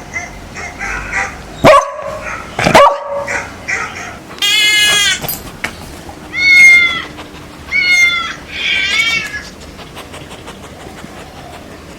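A dog barks twice, then four high-pitched, drawn-out animal cries follow over about five seconds.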